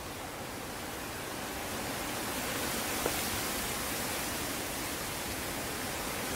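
A breeze blowing outdoors: a steady, even rush of wind that grows a little louder about two seconds in, with one faint click about three seconds in.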